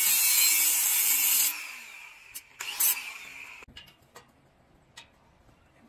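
Makita angle grinder with a cut-off disc cutting through a thin steel flat bar, a harsh high hiss that stops about one and a half seconds in as the motor winds down. A brief scrape near three seconds, then a few faint taps.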